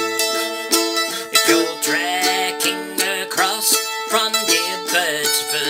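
Mandolin being strummed, playing a run of chords and notes as a song accompaniment.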